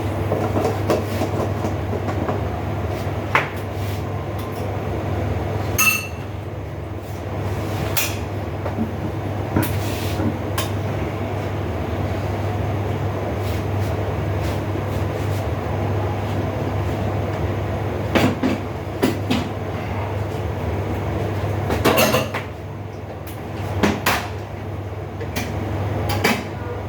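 Steady low rumble and hum of a pot of vegetables in coconut milk cooking on a stove, with a few sharp metal clinks, like a utensil or lid against the pot, breaking in now and then.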